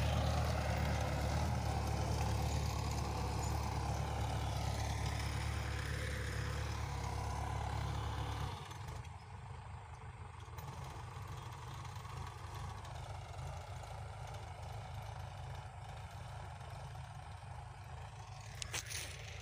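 Mahindra 585 XP Plus tractor's four-cylinder diesel engine running steadily while pulling a seed drill through wet soil. The engine is loud and close at first, then suddenly much fainter about eight seconds in, where it continues as a distant steady hum.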